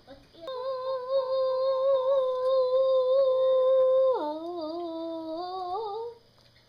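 A child humming: one long, steady high note, then a drop about four seconds in to a lower note that wavers and climbs before it stops.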